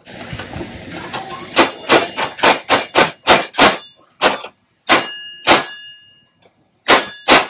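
Hot oil sizzling, then a quick run of sharp metallic clanks, about three a second, some leaving a ringing tone, as gathiya dough is pushed by hand through a perforated metal gathiya plate resting on the rim of a kadai of hot oil. The clanks stop about six seconds in and come twice more near the end.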